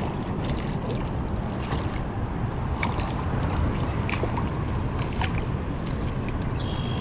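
Steady low rush of river water and wind on the microphone, with a few short splashes and ticks as a hooked smallmouth bass thrashes at the surface.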